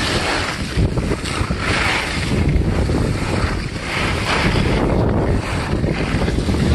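Wind buffeting the microphone of a camera carried by a moving skier, a heavy steady rumble, with the hiss of skis scraping over packed snow swelling with each turn, roughly once a second.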